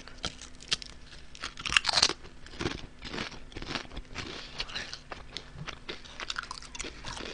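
Close-up crunching and chewing of Honey Butter Chip potato chips: a run of crisp crunches, the loudest about two seconds in.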